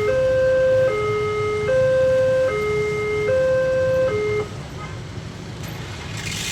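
Multech electronic warning siren of a railway level crossing sounding a two-tone hi-lo alarm, switching between a lower and a higher pitch about every 0.8 seconds, then cutting off about four and a half seconds in. A low rumble runs underneath, and a rising hiss comes in near the end.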